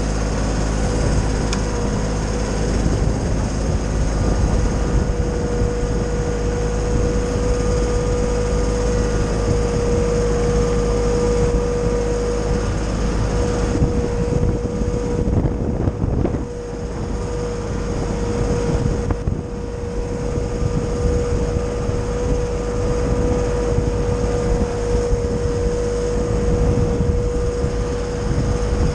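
Titan wood chipper and Kioti subcompact tractor running steadily, a high steady whine over the engine. The sound drops briefly about halfway through and again a few seconds later.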